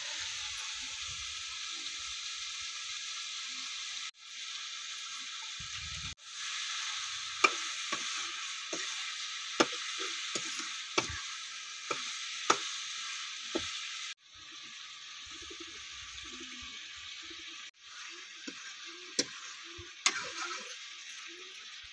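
Chicken in masala sizzling in a steel kadai as a steel ladle stirs it, with sharp clanks of the ladle against the pan every second or so. The sizzle breaks off abruptly a few times.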